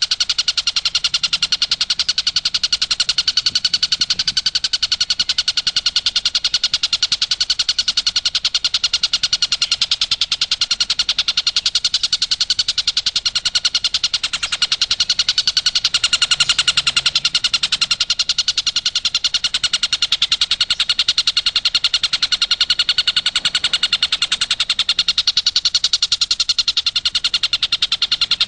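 Tengkek buto kingfisher giving its rapid-fire 'tembakan' call: a steady, unbroken string of sharp high notes repeated many times a second.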